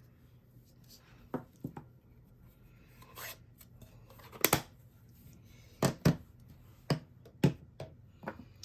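Irregular sharp taps and knocks of stamping tools on a desk, about eight in all: a stamp being inked on the ink pad and pressed onto the card, and supplies set down.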